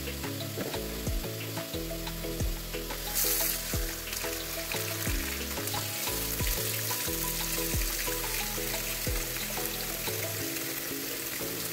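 Vegetables sizzling steadily as they fry in a stainless steel soup pot, with a louder burst of hiss about three seconds in. Background music with a steady beat plays underneath.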